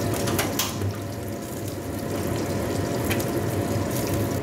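Liquid bubbling and sizzling in a hot aluminium wok just after being poured in, a steady hiss with a few sharp pops.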